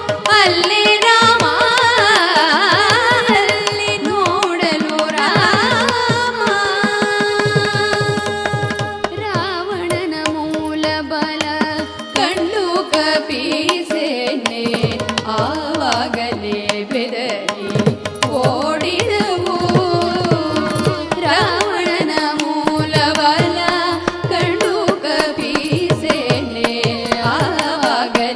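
Carnatic music in raga Vijayanagari, set to Adi tala: an ornamented, gliding melodic line over a steady drone, with drum strokes keeping the beat.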